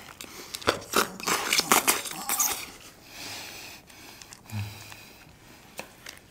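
Eating at the table: a quick, irregular run of sharp clicks and crinkles from a plastic natto tray, its wrapping and chopsticks, thinning out after about two and a half seconds. There is a short low 'mm' hum from one of the eaters about four and a half seconds in.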